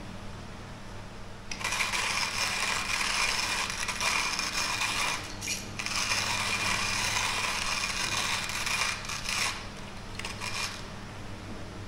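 Timemore hand-cranked burr coffee grinder crushing whole coffee beans as its handle is turned: a dense, gritty crunching rattle that starts about a second and a half in and breaks off briefly twice.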